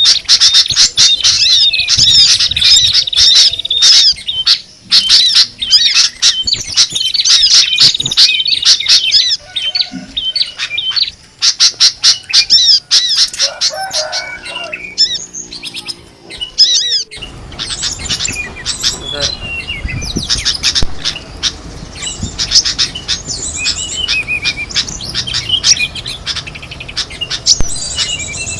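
Dense mix of many small songbirds chirping, whistling and squawking together, a bird-lure recording played to attract wild birds. Just over halfway through it cuts abruptly to another recording of chirping birds with more background noise under it.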